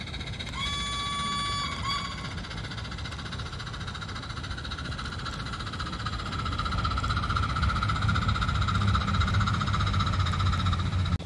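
Model steam locomotive's whistle: one toot of about a second, starting about half a second in, then a short second toot. Then the train's steady running noise and low rumble grow louder as it passes close.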